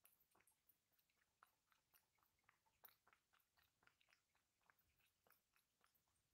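A cat eating from a metal bowl: faint, quick, irregular clicks and smacks of chewing, several a second.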